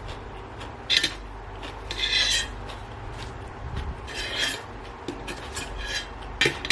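A utensil scraping and clinking against a dish, in four short scrapes.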